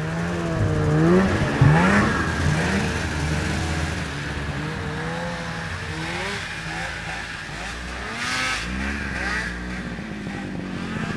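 Snowmobile engines running and revving, their pitch rising and falling again and again, loudest in the first couple of seconds, with another climb about eight seconds in.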